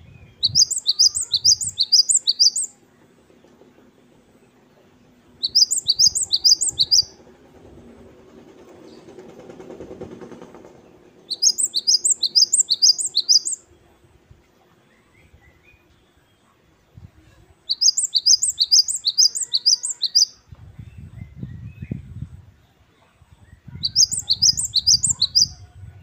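Cinereous tit (gelatik batu, the grey Asian member of the great tit group) singing its 'wucit-wucit' song. It gives five bursts of a quickly repeated, falling two-note phrase, each burst about two seconds long, with pauses of a few seconds between them.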